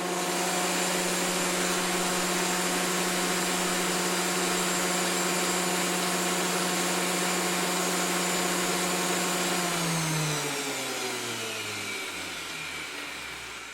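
Electric wood planer running at a steady speed, then switched off about ten seconds in and spinning down, its pitch falling as it fades.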